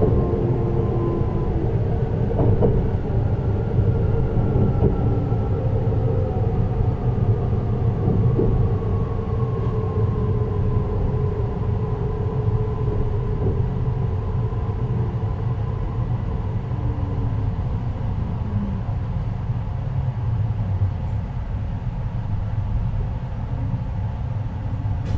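JR Hokkaido 733-series electric train heard from inside its motor car, MoHa 733-1002, running with a steady rumble of wheels on rail and the whine of its traction motors. The whine slowly falls in pitch as the train slows.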